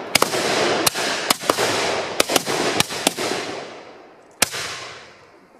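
Black-powder matchlock muskets firing a ragged volley: about nine or ten loud shots in uneven succession, some almost together, their rolling echoes running into one another. A last single shot comes about four and a half seconds in, and the noise then dies away.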